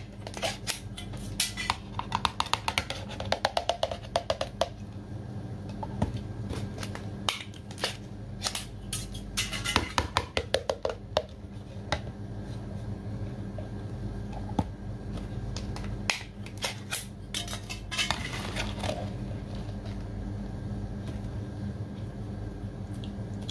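A glass jar and food knocking and clattering on a glazed ceramic serving tray as braised baby octopus is tipped out of the jar and crawfish are set down. The sharp taps come in short quick clusters, with gaps between them.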